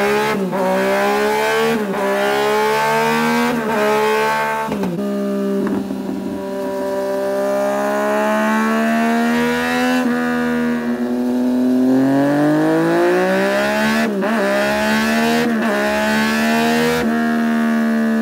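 Yamaha MT-09/FZ-09 inline three-cylinder engine through an aftermarket exhaust, accelerating hard. The revs climb and drop sharply at each upshift, several times near the start and again near the end, with a steadier run at high revs in the middle.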